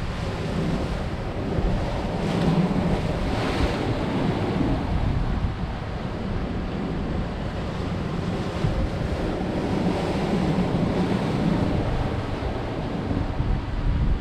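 Sea surf washing against coastal rocks, with wind buffeting the microphone in a steady low rumble.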